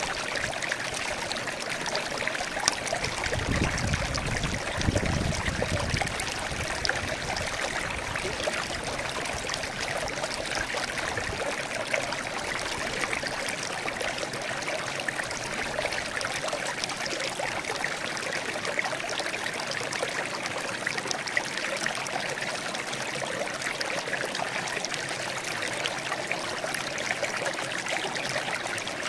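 Water trickling and babbling over stones in a small stream, a steady splashing rush, with a brief low rumble about four seconds in.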